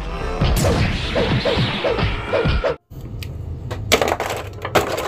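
Cartoon fight sound effects: a noisy crash with a run of about six quick whacks, each falling in pitch, roughly two a second. It cuts off abruptly, and then a few sharp clicks of hard plastic toy packaging being handled follow.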